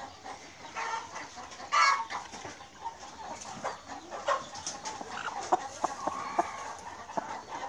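Hens clucking with scattered short calls, the loudest one a brief call about two seconds in.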